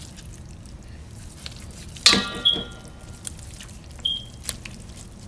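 Knife and hands knocking against a stainless steel bowl of water: one sharp metallic clang with ringing about two seconds in, then two short high dings, with faint clicks and water movement between.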